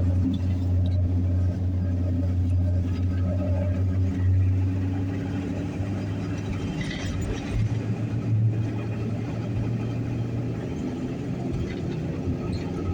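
Steady low drone of a car driving, engine and road noise heard from inside the vehicle.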